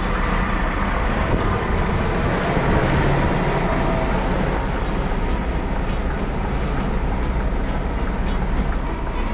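Scania G410 truck's diesel engine running under way, a steady low drone with road and traffic noise and faint scattered ticks.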